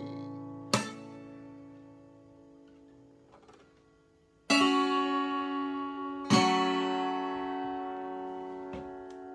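Acoustic guitar with a capo playing the closing chords of a song: one strum about a second in, then two strummed chords about halfway through and two seconds later, each left ringing and slowly fading.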